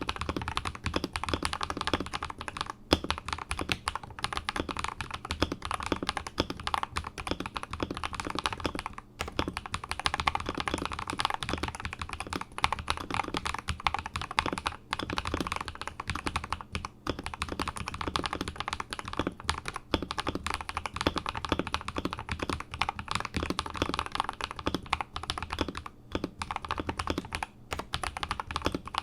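Continuous fast typing on an Akko 5075S mechanical keyboard with Akko Rose Red linear switches lubed with Krytox 205g0, on a polycarbonate plate: a dense stream of key clacks with a few brief pauses.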